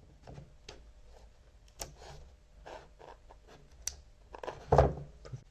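Hands handling a small plastic USB-C adapter and a smartphone: scattered light clicks and scrapes, with a louder knock and rustle near the end.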